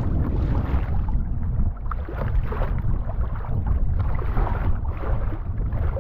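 Wind buffeting the microphone in a steady low rumble, with water splashing and slapping irregularly against a kayak's hull on choppy sea.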